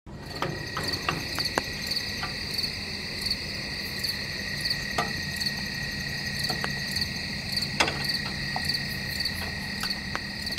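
Night chorus of crickets and other insects: a steady high drone with a chirp pulsing about every two-thirds of a second, and scattered sharp clicks over it.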